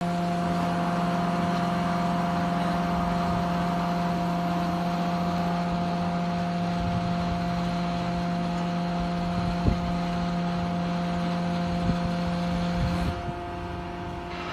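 Heavy machinery running with a steady droning hum, with two short knocks a couple of seconds apart in the second half; about thirteen seconds in, the hum drops in level and changes.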